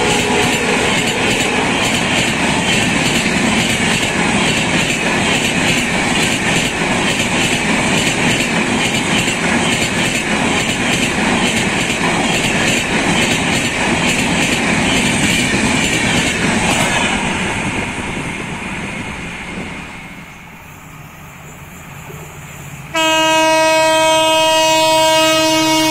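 Passenger coaches of an express train rattling past over the rail joints in a fast, even clickety-clack, dying away after about 17 seconds as the last coaches pass. About 23 seconds in, a WDP4D diesel locomotive sounds its horn suddenly and loudly, one held tone with strong overtones.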